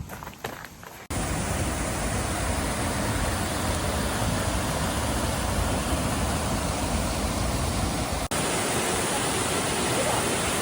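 Waterfall rushing steadily; the sound cuts in abruptly about a second in, after a few brief knocks.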